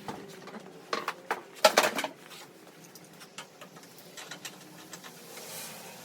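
Welder accessories and packing being handled, with short knocks and rattles. The loudest cluster comes just before two seconds in.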